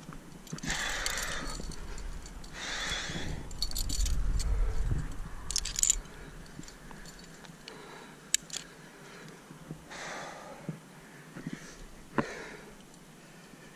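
Quickdraws and carabiners racked on a climber's harness jangling and clinking as he climbs, with a few sharp clicks. There are long rustles early on and a low buffeting on the microphone around four to five seconds in.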